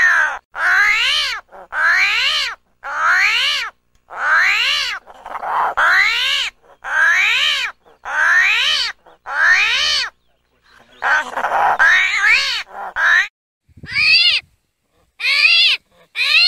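Armadillo calling over and over: a run of high, wavering cries, each rising then falling in pitch, about one a second. There is a short break about ten seconds in, and the calls near the end are shorter and higher.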